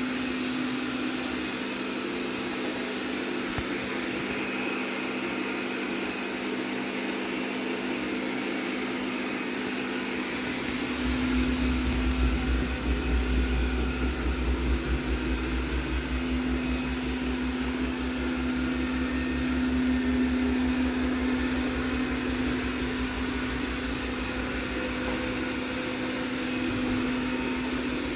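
Rowenta X-plorer Serie 60 robot vacuum cleaner running with a steady motor hum. About eleven seconds in, a low rumble joins and the loudness starts to waver.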